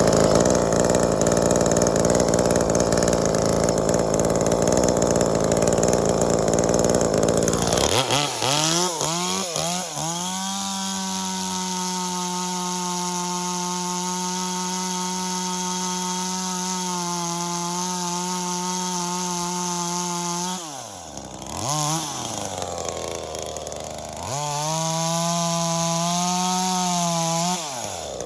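Small two-stroke top-handle chainsaw, a V-Modest 2511t clone of the Echo 2511t, cutting wood under load for about eight seconds. It then runs free at high revs with a steady pitch. Twice the revs drop low and climb back up, and they fall off again near the end.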